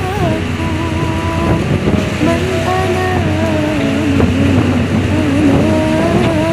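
A wavering background-music melody over the steady low drone of a tugboat's engine, with rushing water.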